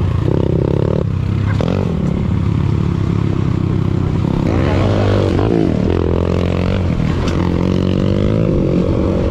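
Motorcycle engines running, with engine pitch swelling and dipping about halfway through.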